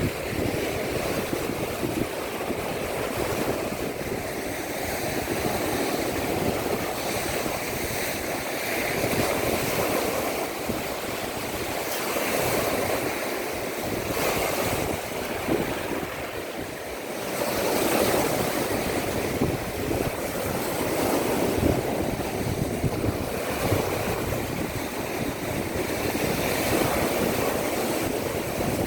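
Baltic Sea surf washing onto the shore in a steady rush that swells and eases every few seconds, with wind rumbling on the microphone.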